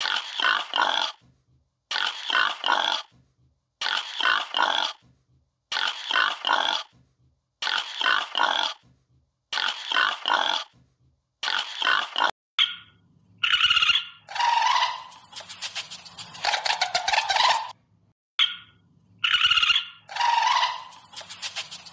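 Pigs grunting and squealing: the same short run of calls repeats about every two seconds. About halfway through they give way to a different animal's longer pitched calls over a low hum, fitting a ring-tailed lemur.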